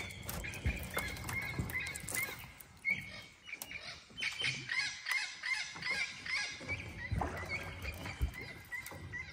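Wild birds calling over and over in short, repeated notes, with scattered clicks and knocks among them.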